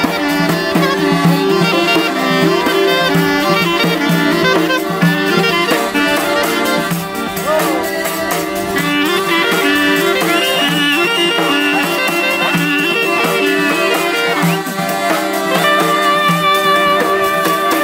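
Southern Albanian saze ensemble playing folk music live: a clarinet leads over two accordions, with a hand-held frame drum (dajre) beating the rhythm. Midway, one long high note is held for about four seconds.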